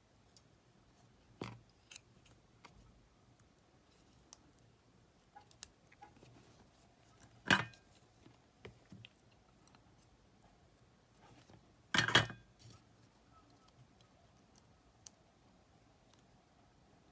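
Scattered small clicks and taps of tools and small parts being handled during an electronics repair, with two louder knocks about 7.5 and 12 seconds in, the second a quick double knock.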